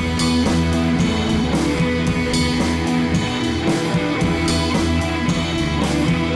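Background rock music led by guitar, at a steady level.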